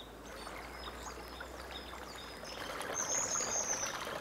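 Shallow stream running over rocks and ice, louder from about two and a half seconds in, with small birds chirping and one longer high call a little after three seconds.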